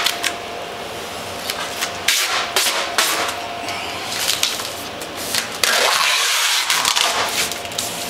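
Wide tape pulled off its roll in several noisy ripping stretches as it is stuck over a ceiling return-air grille, the longest and loudest a little before six seconds in. A faint steady hum runs underneath.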